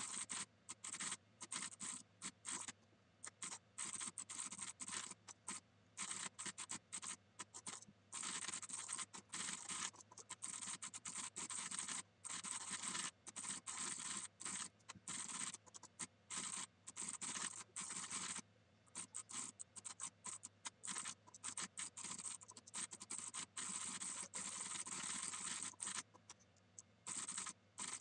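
Mechanical keyboard typing, sped up into a dense, scratchy run of rapid key clicks that breaks off briefly a few times.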